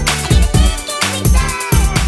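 A loop-built electronic funk beat playing back from GarageBand: regular kick-drum hits under a bass line, with synth lines that slide down in pitch.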